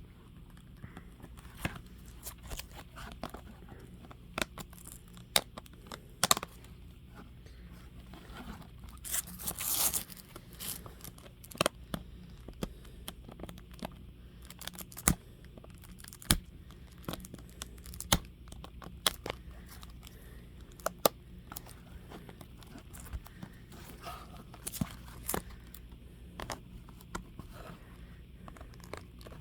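Fingers picking and scratching at the plastic shrink-wrap on a CD case: scattered sharp clicks and crinkling, with a short burst of tearing about ten seconds in.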